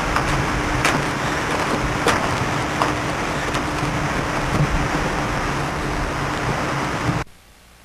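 Steady rushing storm wind on the camcorder microphone, with a faint steady hum underneath and a few sharp ticks in the first three seconds. The sound cuts off suddenly about seven seconds in, leaving only faint hiss.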